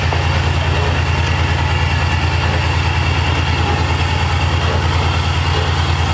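Diesel locomotive engine idling with a steady, even low throb.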